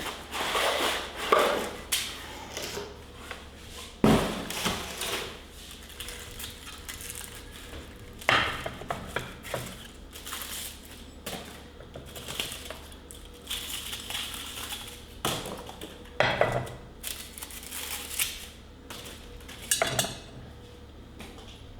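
Kitchenware being unpacked: irregular rustling and crinkling of packaging, broken by sharp knocks and clinks of dishes being handled, the loudest a few times spread through.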